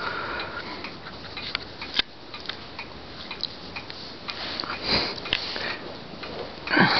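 Small dog sniffing close to the microphone while being petted, with fur rustling under a hand and scattered light clicks; louder about five seconds in.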